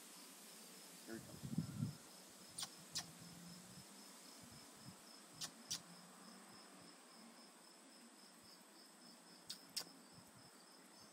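Faint crickets chirping steadily, a high pulse repeating about three times a second, with a few sharp clicks scattered through and a soft low thump near the start.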